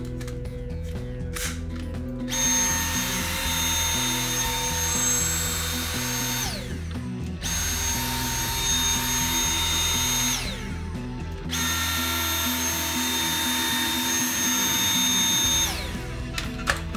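Dyson V8 cordless vacuum's motor running three times for a few seconds each: a steady high whine over rushing air, switched on abruptly and winding down with a falling whine each time it is switched off. Background music plays underneath.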